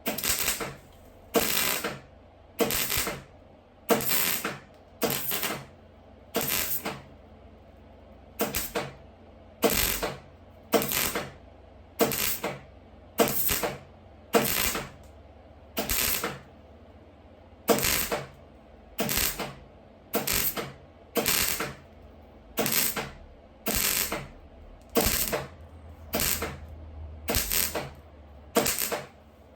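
MIG welder laying short stitch welds on car body sheet metal: a crackling arc in about thirty half-second bursts, roughly one a second, over a low hum.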